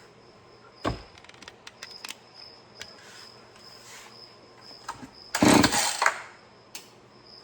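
Husqvarna 445 two-stroke chainsaw being pull-started on choke: a knock about a second in, then a hard pull of the recoil starter about five and a half seconds in with a loud burst under a second long as the engine fires briefly.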